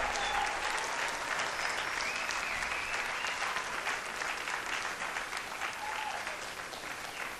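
Audience applauding, a dense patter of clapping with a few voices calling out over it, dying away toward the end.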